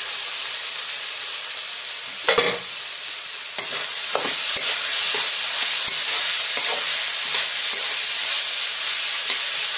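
Chopped cauliflower, potato and peas sizzling in hot oil in a metal kadai, with a spatula scraping and stirring them now and then. The sizzle grows louder about three and a half seconds in.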